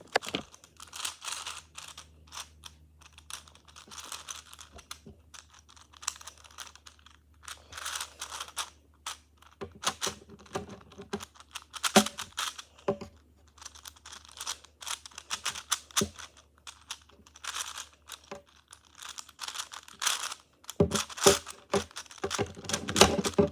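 5x5x5 Rubik's cube being turned by hand: plastic layers clicking and rattling in bursts of quick turns with short pauses. The turning is kind of rough.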